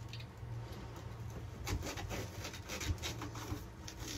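Faint rubbing and scuffing of hands pressing foam-backed vinyl headliner against a fiberglass hull, over a low steady hum.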